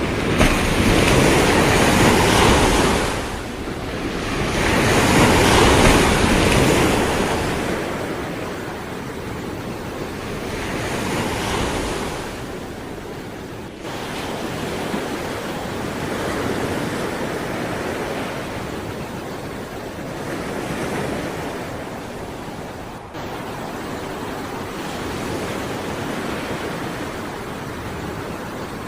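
Sea waves breaking and washing in: two strong surges in the first seven seconds, then smaller waves rolling in every four to five seconds.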